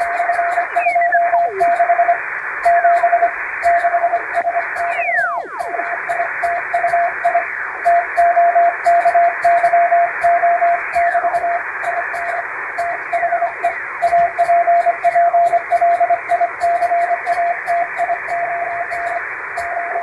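Hand-sent Morse code: a single tone near 700 Hz keyed in dots and dashes, heard as if through a shortwave receiver, with hiss, slow fading and a few falling whistles sweeping past, the loudest about 5 seconds in.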